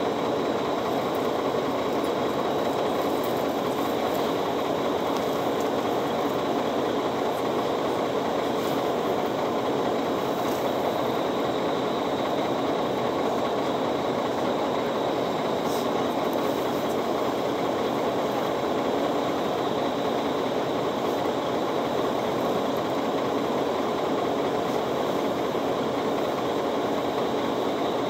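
Steady, even drone inside a city bus standing still at a stop.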